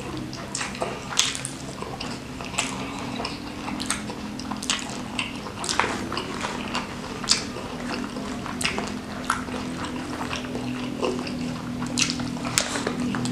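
Close-miked chewing and mouth sounds of a person eating, with frequent short sharp clicks and crunches, over a faint steady low hum.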